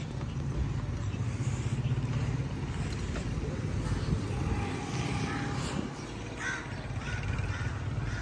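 Wind buffeting the microphone as a bicycle is ridden along a paved road, a steady low rumble with tyre and road noise.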